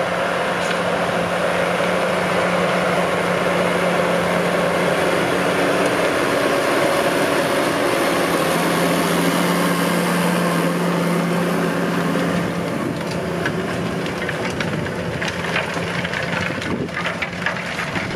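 A JCB Fastrac 3220 tractor's engine running steadily under load as it pulls a harrow across ploughed ground, its note shifting about halfway through. Rattling clatter joins in over the last few seconds as it comes close.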